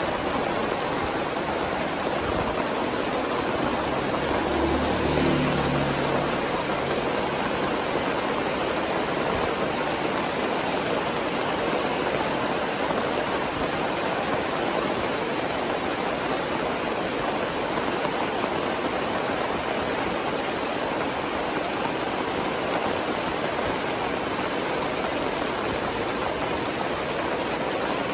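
Very heavy rain pouring down, a steady dense hiss. A brief low hum is heard about four seconds in.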